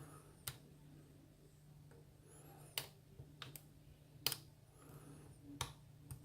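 Lock pick working the pins of a spool-pinned ISEO pin-tumbler lock under light tension: about four faint, sharp clicks, each a second or more apart, with a few softer ticks between.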